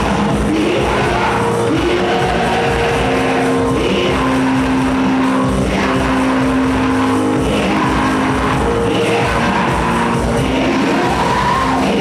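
Church worship music, loud and continuous, with long held chords and voices singing over them.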